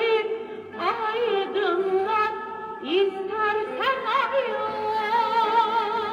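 A Turkish pop song played from a 45 rpm vinyl single on a Grundig 148 radiogram's record player: long wavering sung or melodic notes that slide between pitches, over instrumental backing.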